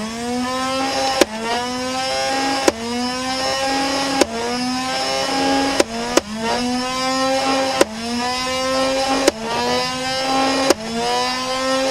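Nerf Rival MXVI-4000's battery-driven flywheel motor whining up to speed, then firing foam balls one at a time in single-shot mode: about eight sharp snaps roughly every one and a half seconds, the whine dipping in pitch at each shot as the driving wheel loads up, then recovering.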